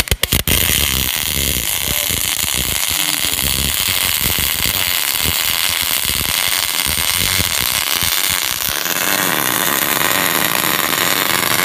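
Aftek-EHS welder arc welding 16 gauge stainless steel sheet. A few sharp cracks as the arc strikes, then a steady, loud hiss as the weld runs. The lowest part of the sound drops away about nine seconds in.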